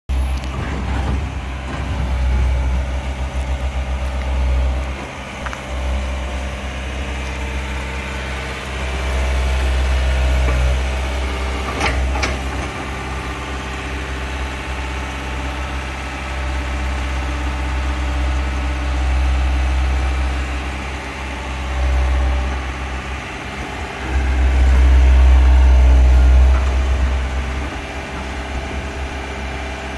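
Amphibious swamp excavator's diesel engine running, rising and falling in level several times as the machine moves on its pontoon tracks. A single sharp knock about twelve seconds in.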